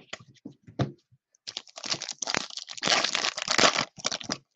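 A stack of Topps Finest chromium trading cards being flipped through by hand. A few separate clicks come in the first second, then about three seconds of dense, rapid clicking and rustling as the cards slide over one another.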